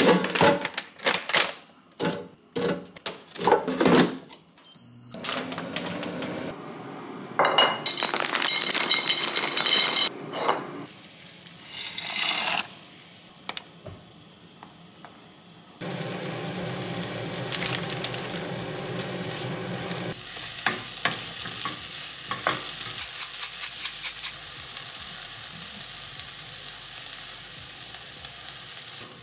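Kitchen cooking sounds: a run of clicks and knocks as an air fryer drawer is handled, then a wooden spoon stirring pasta in a saucepan, and a pan of broccoli, mushrooms and spinach sizzling with steady frying noise through the second half.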